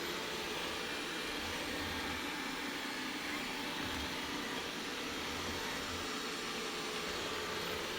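Dreame L10 Ultra robot vacuum running, its suction fan giving a steady, even whir.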